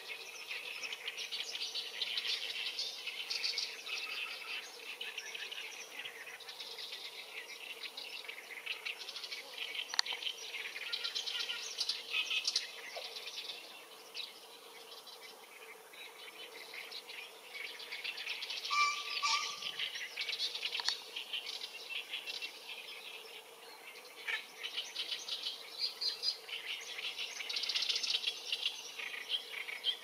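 A chorus of chirping insects and small birds: dense, rapid chirping that swells and fades in waves over a faint steady hum, with a short two-note call about two-thirds of the way through.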